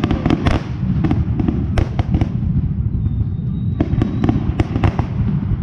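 Fireworks display going off: a continuous rumble of booms with sharp, irregular cracks and crackling on top.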